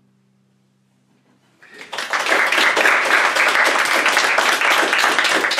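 The last guitar chord of a song rings and fades away, then an audience starts clapping about a second and a half in and keeps up loud, steady applause.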